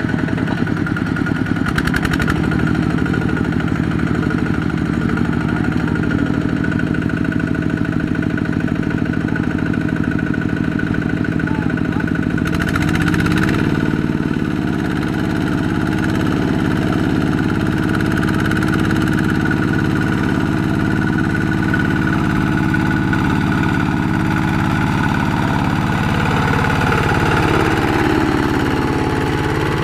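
Kubota single-cylinder diesel engine of a two-wheel walk-behind tractor running steadily under load as it pulls a loaded rice trailer through deep mud. Its pitch rises briefly about halfway through and shifts again near the end.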